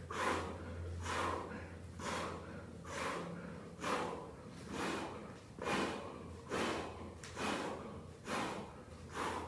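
A man breathing hard during push-ups: a sharp, noisy exhale about once a second, in time with each repetition.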